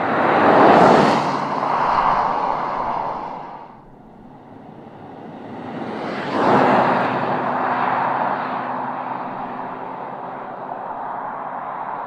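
Cars driving past, one after another: the first engine and tyre sound swells and fades within about four seconds, then a second car's engine rises to a peak and slowly fades away.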